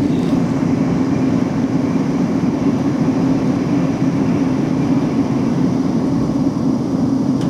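Steady hum and rumble of a South Western Railway Class 458 electric multiple unit, holding one even pitch throughout.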